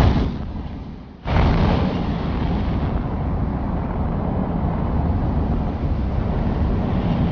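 Torpedo warhead detonating against a warship: a sudden blast, then a second, bigger blast about a second later that gives way to a long, low rumble.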